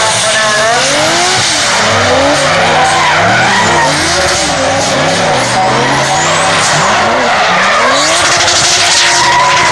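Two drift cars, a Nissan 200SX and a BMW E46, sliding in tandem. Their engines rev up and down again and again over a steady hiss of spinning, smoking tyres.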